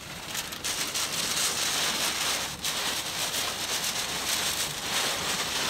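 Wind-driven rain pelting the car's windshield and body, heard from inside the closed car: a dense, steady hiss full of small rapid hits, brought by the strong wind rushing in beside the tornado.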